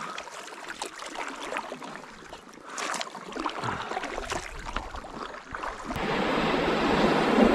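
Kayak paddle splashing and dripping in calm river water. About six seconds in, this switches abruptly to the steady rush of a small rapid.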